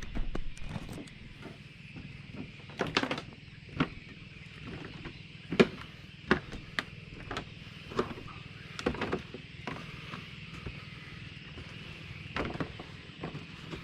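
Bicycle tyres rolling steadily on a road, with irregular sharp clicks and knocks every second or so.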